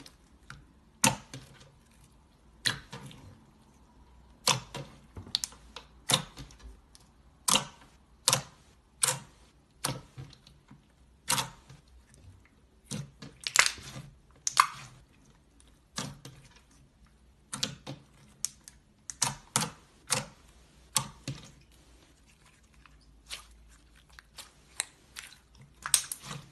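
Slime being squeezed and poked by hand, giving irregular sharp pops and clicks, about one or two a second, as air pockets burst.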